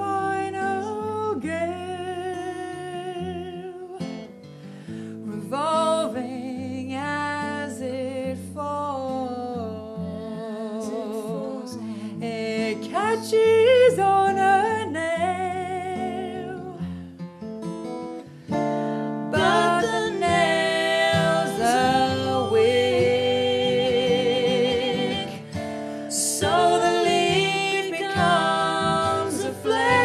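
Music: singing with a wavering vibrato over plucked acoustic guitar. About two-thirds of the way through it becomes fuller and louder.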